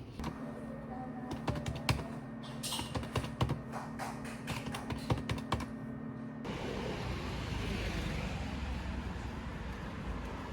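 Quick, irregular clicks and taps over a low steady hum, stopping suddenly about six seconds in, where a steady noisy hiss takes over.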